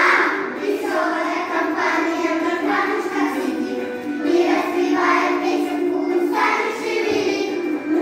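Young children's choir singing together in short phrases with held notes.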